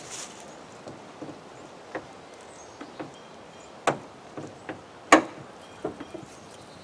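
Chevrolet SUV hood latch worked by hand: a series of sharp metallic clicks and knocks, the loudest about five seconds in as the hood is released and swung up.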